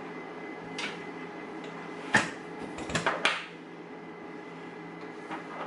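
Several small clicks and knocks of a metal padlock and lockpicking tools being handled, the sharpest about two seconds in and a quick cluster around three seconds, over a steady electrical hum.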